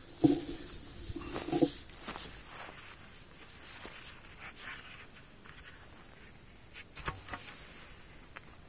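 Footsteps in dry grass and rustling of grass and gloves as a person steps up and crouches at the base of a vine stake, with a few sharp clicks about seven seconds in. Right at the start a brief pitched sound lasting about a second and a half rises above the rustling.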